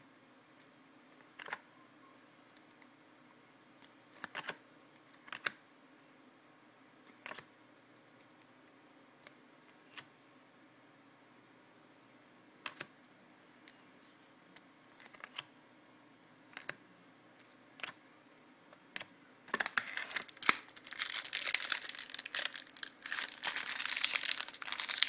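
Trading cards being handled, with scattered sharp light clicks every second or two. About 19 seconds in, a card pack's wrapper is torn open and crinkled, a dense crackling that goes on to the end.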